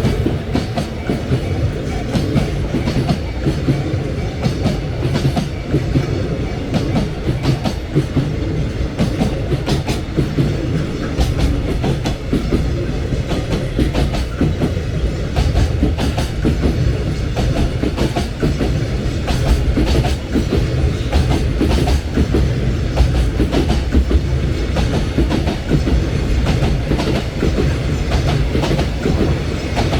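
Freight train rolling past over rail joints: a continuous low rumble with a dense run of clickety-clack as the wheelsets strike the joints.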